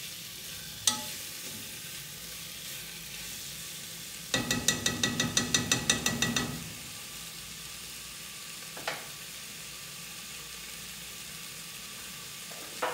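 Chicken drumsticks sizzling steadily as they sear in an aluminium pressure-cooker pot while being stirred. About four seconds in, a utensil knocks rapidly against the pot, roughly six ringing knocks a second for about two seconds. Single clicks come just under a second in, midway and near the end.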